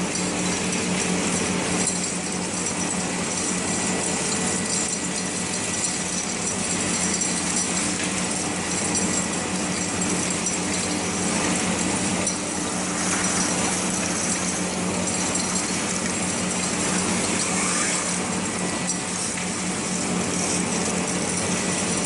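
Industrial vacuum loader's suction hose sucking up gravel and dirt: a steady rush of air with stones clinking and rattling as they are drawn up the hose, over a steady low hum.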